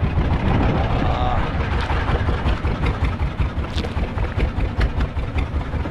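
Fishing boat's engine running steadily with a low, pulsing hum.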